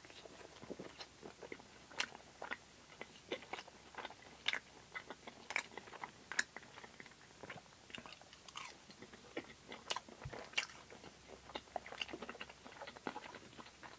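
Close-up eating sounds: biting into and chewing a crispy battered plant-based fishless fillet, with many small, irregular crunchy crackles.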